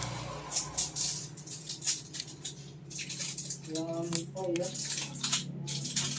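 Irregular light clicks and rattles of small hard parts being handled, over a steady low hum, with a short voice-like sound about two thirds of the way through.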